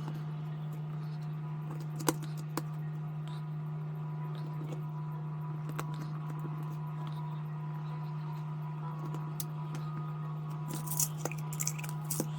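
A steady low hum with a few sharp, light clicks and taps: one about two seconds in, another shortly after, and a quick cluster of several near the end, like small parts or tools being handled.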